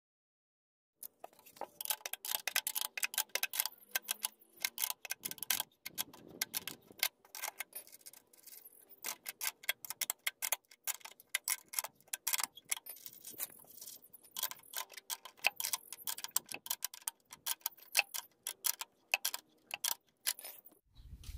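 Ratcheting wrench clicking rapidly as it runs a nut down a bolt through a wooden frame. The clicks come in quick runs with short breaks between strokes, starting about a second in.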